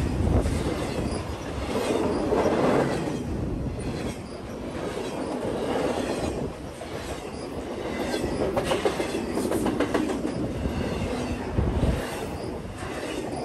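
Double-stack intermodal freight train passing close by: a steady rush of wheel-on-rail noise with rhythmic clicks as the car trucks roll over the rail joints. It swells and eases as each car and truck goes past.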